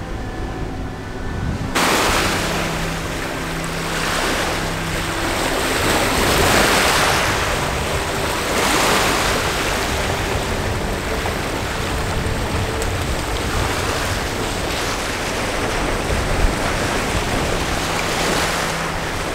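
Small lake waves washing onto a gravel shore, swelling and easing every two or three seconds, with wind buffeting the microphone.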